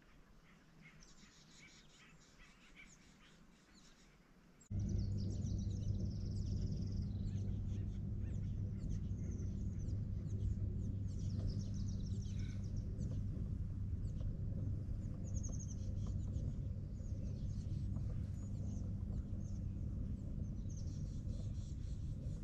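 Songbirds chirping faintly. About five seconds in, a much louder, steady low hum cuts in and carries on under the birdsong.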